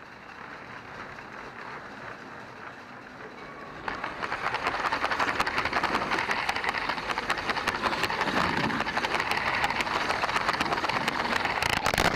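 A motorised LEGO train running on plastic LEGO track, heard from a camera riding on the train: a steady rolling rattle that turns louder at about four seconds into rapid, dense clicking and clattering. A few loud knocks come near the end.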